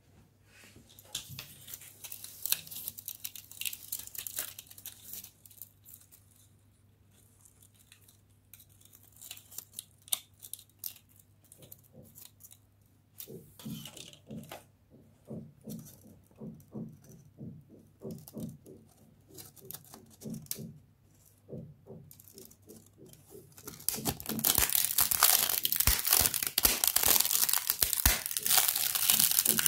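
Hands crushing a black 3D-printed plastic support lattice: its thin walls snap and crumble in a dense, loud crackling crunch that starts about two-thirds of the way through. Before that, fainter scattered crackles and soft knocks as the piece is handled.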